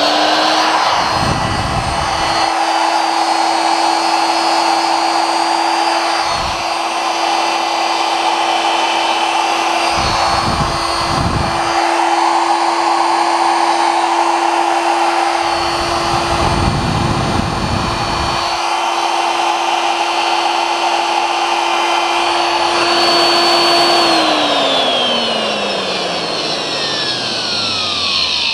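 Brushed commutator motor of an IE1022 electric drill with a freshly rewound armature, running unloaded on a test run: a steady high whine, with a few spells of low rumble in the first part. About 24 s in it is switched off and winds down, its pitch falling steadily.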